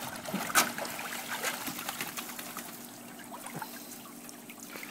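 Water splashing and streaming off a large wet dog as it climbs out of a swimming pool up the steps, with one sharper splash about half a second in and a patter of drips after.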